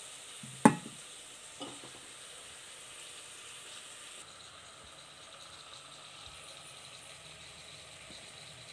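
Okra and tomatoes frying in a steel pot, a steady quiet sizzle. About a second in, the steel spoon clinks sharply against the pot, with a softer knock just after.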